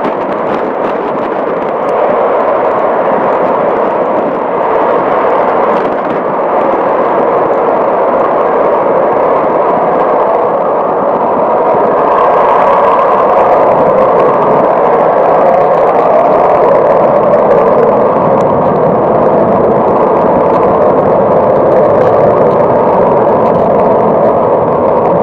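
Eurofighter Typhoon jets' twin Eurojet EJ200 turbofans at dry take-off thrust, without afterburner, as the jets take off and climb away. A loud, steady roar that swells about two seconds in and again around twelve seconds in.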